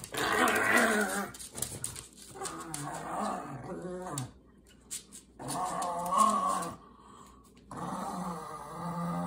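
Pugs growling in play during a tug of war over a shoe: four long growls with short pauses between them.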